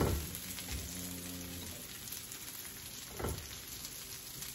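Breaded chicken strips sizzling steadily in hot oil in a skillet as they are turned over with a fork, with two brief louder bursts, at the start and about three seconds in.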